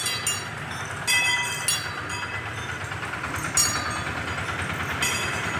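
Metal bells clanking irregularly, roughly once a second, each stroke ringing briefly, over a steady low street rumble. These are typical of the bells worn by a walking temple elephant.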